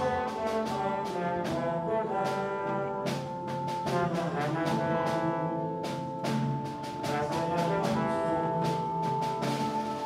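Symphony orchestra playing, with brass to the fore: quick, short detached notes, and a high note held through the second half.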